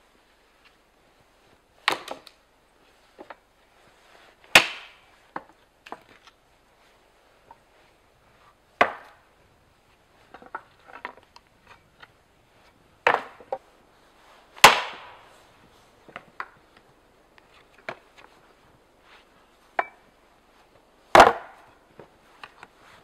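Homemade Russian-pattern axe (C45 steel head, ash handle) chopping fallen branches into firewood lengths: about six sharp strikes of the blade biting into wood, irregularly spaced, with smaller knocks between them.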